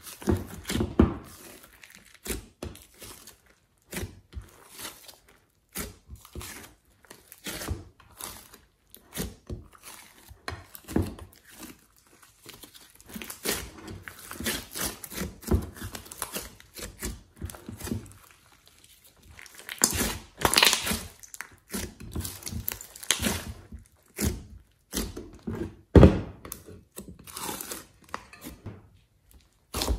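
Hands kneading, squeezing and stretching glossy slime mixed with clay: an irregular run of squishes and pops of varying loudness, the loudest a little past two-thirds through and near the end.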